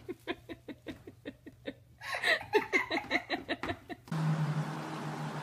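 A person laughing in quick repeated bursts, fainter at first and then louder, which cuts off abruptly about four seconds in to a steady hiss with a low hum.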